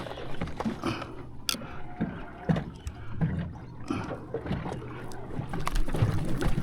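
On-board noise of a small boat: scattered knocks and clicks of handling and gear, over a steady low hum.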